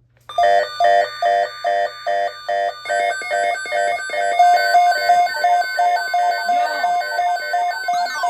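Electronic alert alarm beeping, a buzzy tone pulsing about two and a half times a second, with six beeps. About three seconds in it changes to a denser, faster-pulsing pattern, and sweeping up-and-down tones come in near the end.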